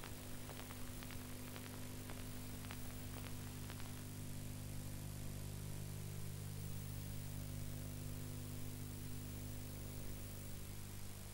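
Videotape playback noise: a steady low electrical hum under an even hiss, with a few faint clicks in the first few seconds.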